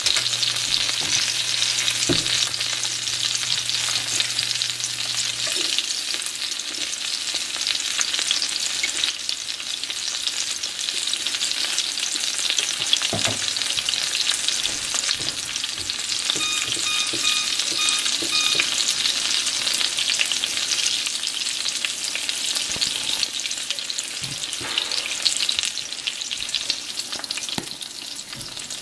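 Breaded fish fillets frying in shallow oil in a nonstick skillet: a steady, dense sizzle with scattered crackles and pops.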